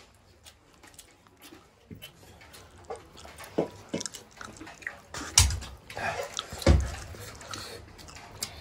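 Eating sounds: chewing, lip smacks and fingers pulling apart chicken, a run of short wet clicks. Two heavier thumps land a little past the middle and again about a second later.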